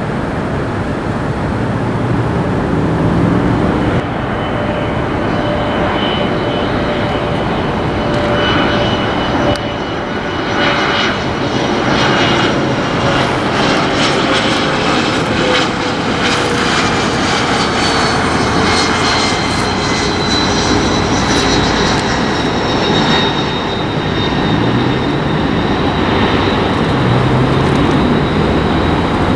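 Turbofan engines of a Bombardier CRJ regional jet on final approach to land: a steady rumble with a mid-pitched hum and a high whine, both slowly falling in pitch as the jet passes.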